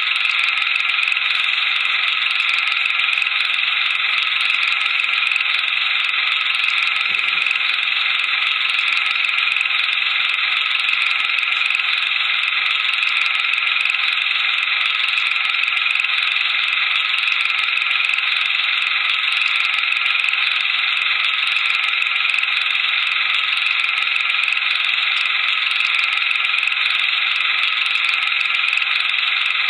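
Steady mechanical whirring and rattling that stays unchanged through the picture's cuts, typical of a cine film projector running while the old film is played back.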